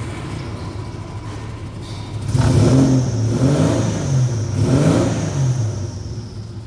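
Holden Commodore 3.8-litre V6 idling, then revved three times from about two seconds in, each rev rising and falling, before it settles back to idle near the end.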